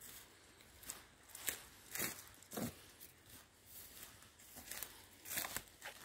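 Footsteps crunching through dry leaf litter and twigs on a forest floor, an uneven crackle at walking pace.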